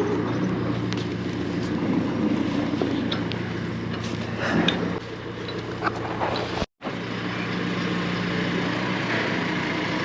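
An engine running steadily at low speed, with a few light clicks and knocks over it. The sound cuts out completely for a split second about two-thirds of the way through, then the engine hum carries on.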